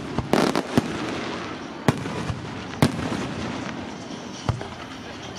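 Fireworks display: aerial shells bursting with about half a dozen sharp bangs at irregular intervals, over a continuous noisy background.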